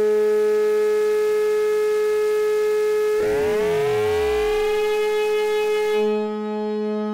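Noise Engineering Virt Iter Legio digital oscillator in its Harm (additive) mode holding a steady synth tone with a hiss of phase-modulated noise mixed in, the sign of the Tang knob pushed near maximum. About three seconds in, its partials fan out into gliding tones, some rising and one sliding down low. About six seconds in, the hiss cuts off and a clean tone is left.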